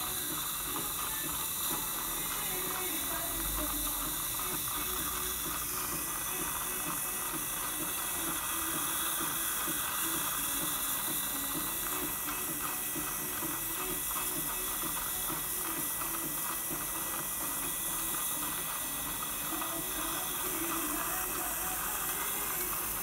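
Dental saliva ejector suction running steadily, with a continuous hiss and a fine crackling gurgle as it draws saliva and air from the mouth. A faint steady high tone is heard throughout.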